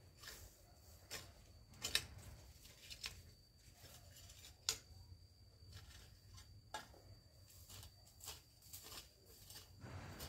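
Faint long-handled hoe chopping and scraping at grass and soil: short, sharp strokes at an irregular pace, about one a second.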